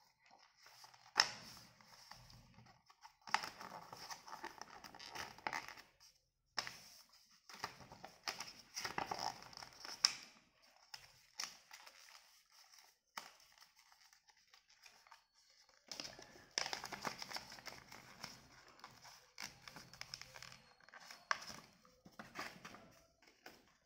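A sheet of paper being folded and creased by hand: irregular rustling and crinkling in several bouts with a few sharp crease snaps, and a quieter pause in the middle.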